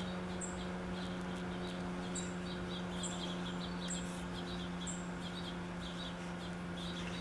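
Small birds chirping: short, high, falling chirps about once a second with busier chatter beneath them, over a steady low hum.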